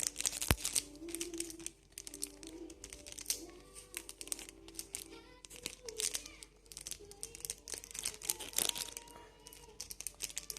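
Plastic snack-packet wrapper crinkling and crackling in irregular quick bursts as it is handled and opened, with soft background music underneath.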